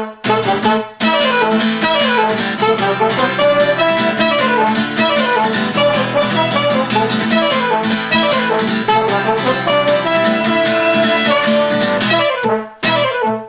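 A rock band playing an instrumental passage led by guitar, with repeating falling runs of notes and a couple of short stops near the end.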